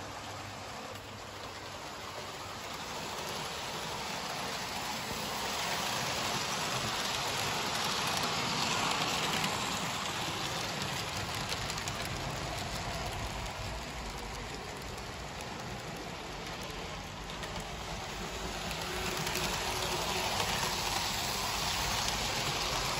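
Hornby OO gauge model trains running round the track: a steady rattling rumble of wheels on the rails that swells louder twice as trains pass close by.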